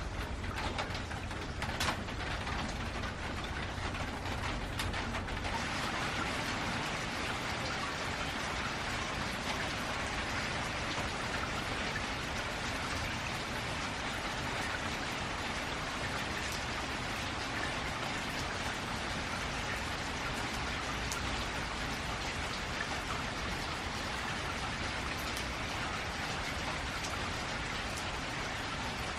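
Steady downpour of rain drumming on a metal roof, with single drops ticking sharply in the first few seconds. The rain grows denser about five seconds in.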